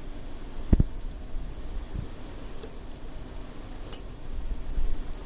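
Three crisp clicks of a handheld remote control's push buttons being pressed, spaced a second or more apart, with a dull low handling thump about a second in.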